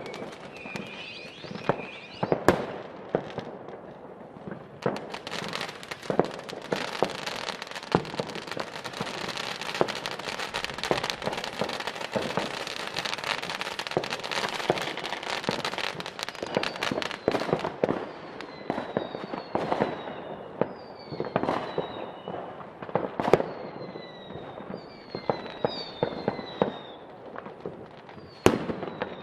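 New Year's Eve fireworks: many rockets and firecrackers going off in quick succession, with dense crackling through the middle. From about two-thirds of the way in, a string of short falling whistles sounds among the bangs.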